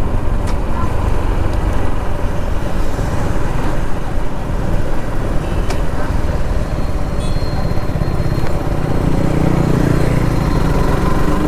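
Heavy wind buffeting on a helmet-worn lavalier mic on a motorcycle at road speed, a steady low rush with engine and road noise beneath it.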